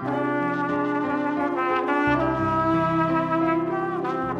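A trumpet playing a slow melody of held notes over chords and bass notes from a digital piano.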